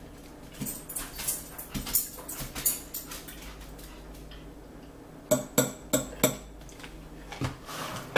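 Meal-table sounds: a fork clinking and scraping on a plate, with scattered small knocks and four sharp clinks in quick succession a little past the middle.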